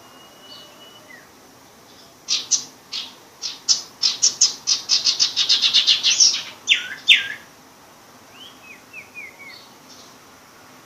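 Sirpu bird practising its song, still at the learning stage: a run of sharp high notes that speeds up into a rapid trill, two louder notes after it, then a few soft chirps.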